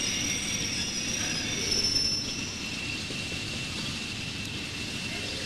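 A train's steel wheels squealing on the rails over a steady rumble, with two high squeal tones; the higher one stops about two and a half seconds in while the lower one holds on. The sound is loudest about two seconds in.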